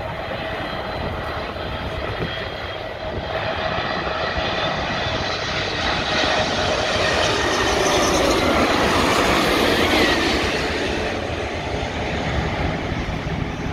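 Boeing 747-8's four GEnx-2B turbofan engines passing low overhead on final approach: a steady jet roar with a whine. It builds to its loudest about two-thirds of the way through, the whine drops in pitch as the jet goes by, and then it eases.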